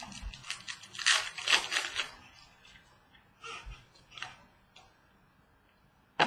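Trading cards being handled on a wooden table: a quick run of rustles and clicks of card stock and plastic sleeves, then a few softer taps and one sharp tap just before the end.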